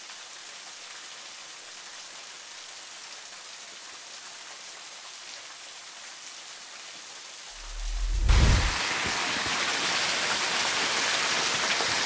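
Rushing water of a waterfall: a soft steady hiss, then after a low thump about eight seconds in it turns suddenly much louder and fuller.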